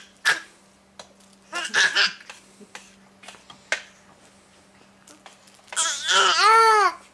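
A baby's voice making short excited squeals, then near the end one longer, loud call that rises and falls in pitch: the baby's ape-like calls.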